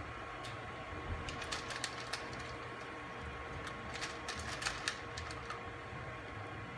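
Scattered light plastic clicks and taps from a laboratory micropipette as its used tip is changed for a fresh one, over a faint steady electronic hum.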